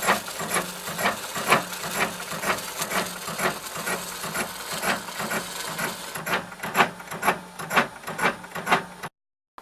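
A machine running with a regular clacking, about two strikes a second, over a steady hum. It cuts off abruptly near the end.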